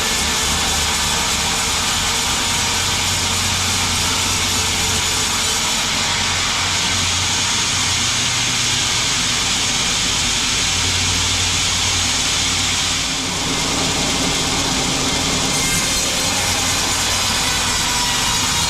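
Sawmill saw running steadily while cutting a log into wide boards, with a low machine hum underneath and a brief dip in level about thirteen seconds in.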